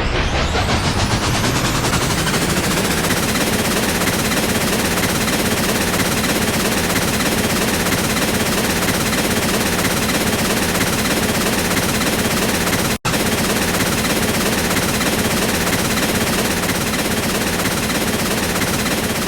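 Train running with a loud, dense, rapid rattling clatter, cut off for an instant about thirteen seconds in.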